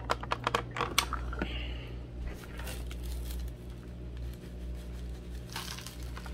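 A few sharp clicks as the plastic food processor bowl and blade are handled, then dry, crumbly ground dried beef poured from the bowl into a plastic tub, louder near the end.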